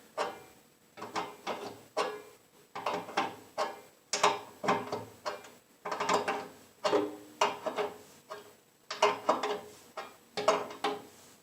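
Hand ratchet clicking in short repeated strokes, roughly one or two a second, tightening the bolts that hold a smokestack to a pellet grill's steel side and cinching down its felt gasket.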